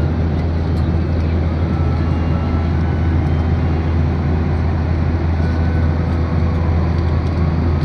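Jet airliner cabin noise in cruise: a steady, loud low hum with an even rush of airflow and engine noise.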